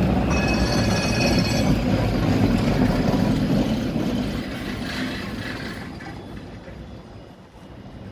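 An older Polish-built single-car tram pulling into a stop: its steel wheels rumble on the rails, with a brief high squeal in the first second or two. The rumble then fades steadily as the tram slows and draws away.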